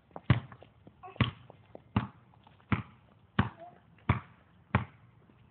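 A ball bouncing on pavement: seven sharp bounces in an even rhythm, about three-quarters of a second apart.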